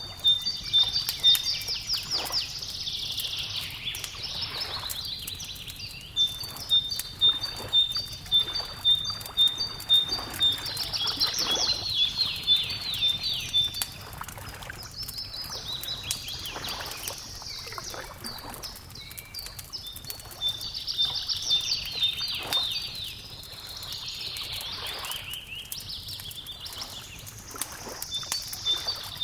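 A songbird sings phrases of rapid notes that drop in pitch, one about every five or six seconds, with a high, evenly repeated note between the phrases. Under it a wood fire crackles with frequent sharp pops.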